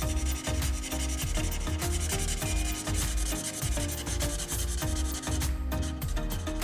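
Felt-tip Promarker nib rubbing back and forth on paper in quick repeated strokes as a block of red colour is filled in.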